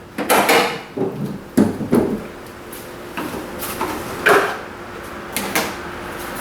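A series of sharp clunks and knocks, about six at uneven intervals, as of hard parts being handled and set down in a workshop.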